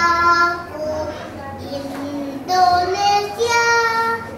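A young boy singing a children's song solo, holding some notes longer, near the start and again near the end.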